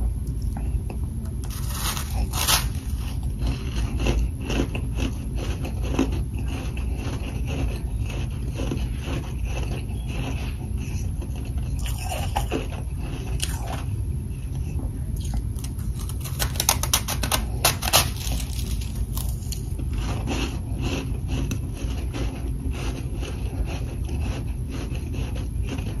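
Humidifier freezer frost being bitten and chewed: crisp, squeaky crunching in irregular bursts, densest about two seconds in and again near the end of the second third, over a steady low hum.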